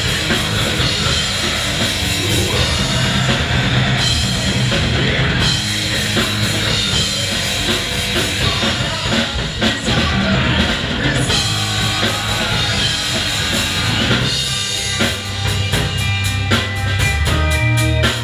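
Live rock band playing loud: electric guitars over a full Mapex drum kit, kick drum and cymbals prominent. Toward the end the drums break into a fast, even run of hits.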